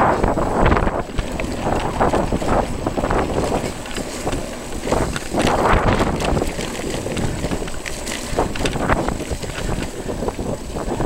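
Wind buffeting the microphone in gusts as a mountain bike rolls over a rough dirt-and-gravel track, with tyre rumble and small rattles and clicks from the bike.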